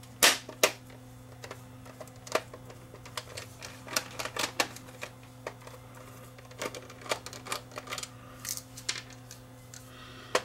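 A small screwdriver backing screws out of the plastic housing of a smoke and carbon monoxide alarm, giving irregular sharp clicks and ticks of driver and plastic.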